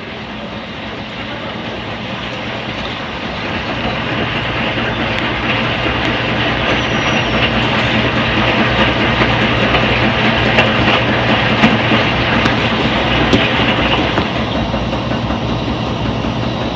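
Front-load washing machine in its spin cycle: a steady motor hum under a whirring drum that grows louder as it speeds up over the first ten seconds or so, with a few faint clicks.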